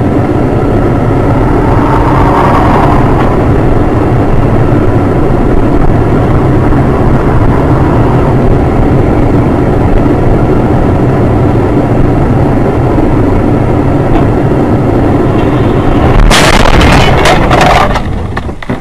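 A moving car's steady road and engine rumble. About sixteen seconds in comes a sudden, loud burst of impacts lasting about two seconds: the car colliding.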